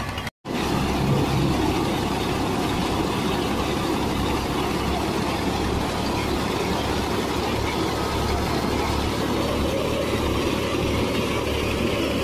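Tractor-driven wheat thresher running: a steady tractor engine hum under the dense noise of the threshing drum and blower. The sound cuts out for a moment just after the start, then runs on unchanged.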